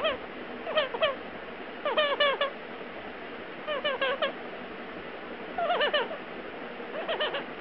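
Pet parrot making soft whining cries while drowsing or asleep: clusters of two to four short squeaks, each falling in pitch, repeating about every one to two seconds.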